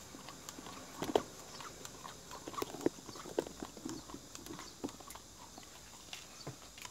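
Jindo dog licking ice cream from a handheld plastic cup: irregular wet tongue clicks and smacks against the cup.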